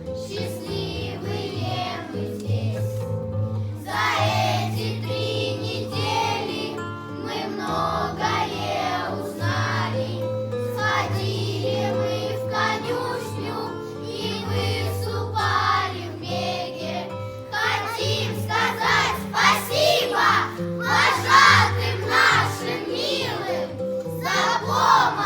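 A group of children singing a bard-style song together in phrases, over a steady instrumental accompaniment.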